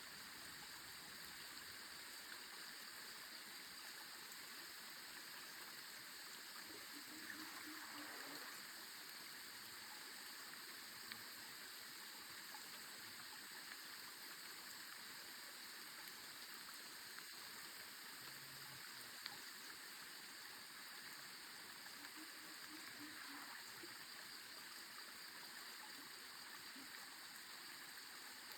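Faint, steady rush of a small woodland creek flowing.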